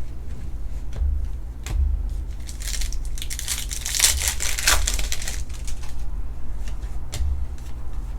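A trading card pack's wrapper crinkling and tearing as it is ripped open and handled, loudest from about three to five seconds in.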